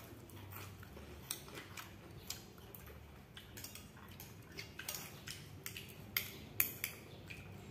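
Metal spoon clinking and scraping against a ceramic bowl during a meal: scattered light clicks at irregular intervals.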